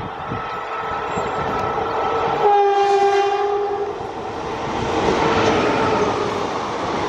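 Electric locomotive sounding its horn once, a blast of about a second and a half, as it approaches with an express train. The locomotive and coaches then run past, with rising wheel-on-rail noise and clatter over the rail joints.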